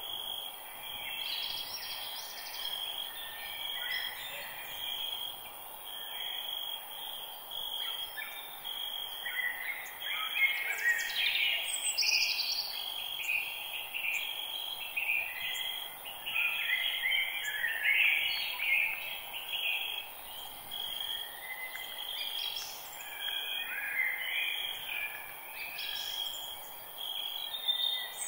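Forest birdsong: many birds chirping and calling in short phrases, some sweeping downward, over a steady high insect buzz.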